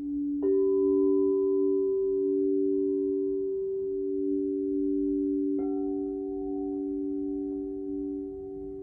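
Crystal singing bowls: one bowl holds a steady tone that swells and fades every second or two, while a bowl is struck twice, about half a second in and again after about five and a half seconds, each strike ringing on in a long, pure tone.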